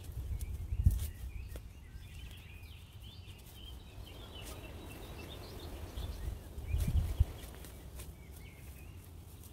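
Spade digging into mulched garden soil, with two dull thuds, about a second in and around seven seconds in, while small birds sing.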